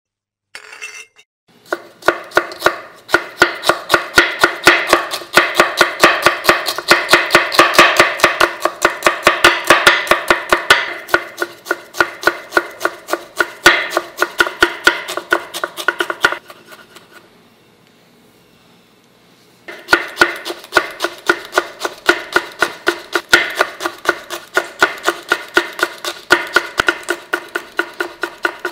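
Chef's knife chopping on a wooden cutting board in quick, steady strokes: mincing ginger, then slicing green chillies. The chopping stops for about three seconds in the middle, then resumes.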